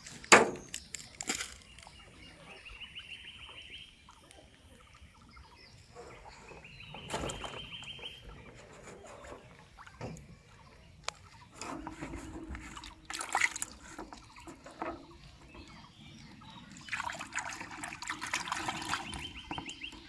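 Water sloshing and splashing in the boat and bucket, with a louder stretch of splashing near the end, broken by several sharp knocks, the loudest just at the start. A bird trills briefly twice.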